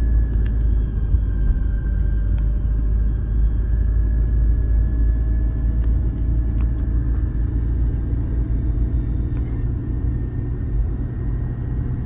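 Road noise inside a moving car: a steady low rumble of engine and tyres, with a faint steady whine above it.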